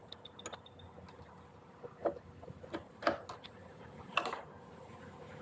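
A few scattered light clicks and knocks as gloved hands handle the wiring and plastic connectors inside the Segway X260 electric dirt bike's frame. The sharpest come about two, three and four seconds in.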